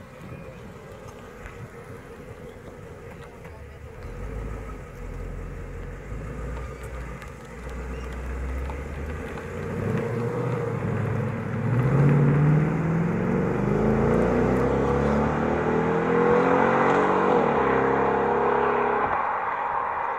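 Ford Mustang GT's 5.0-litre V8 running at low revs, then accelerating away about halfway through, its note rising in pitch several times through the gears and getting louder. It stops abruptly about a second before the end.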